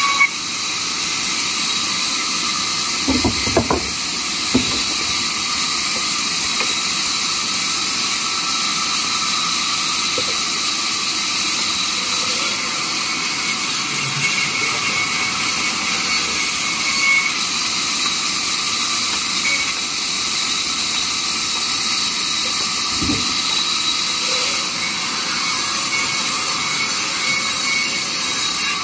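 Large vertical band saw running and ripping wooden planks, a steady high hiss of the blade through the wood. A few short knocks come about three to five seconds in and once more past twenty seconds.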